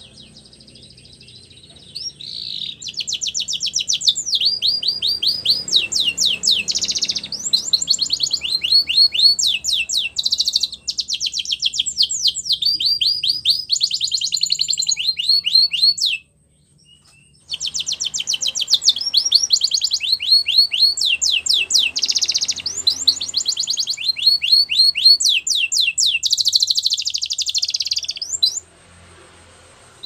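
Male canary singing long runs of fast, high trills, phrase after phrase. It breaks off for about a second and a half midway, then sings on and stops shortly before the end.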